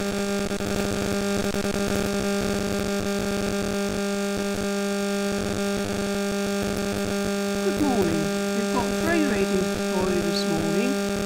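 Steady electrical mains hum from a microphone and sound system: a constant buzz with many overtones. About eight seconds in, people start talking quietly over it.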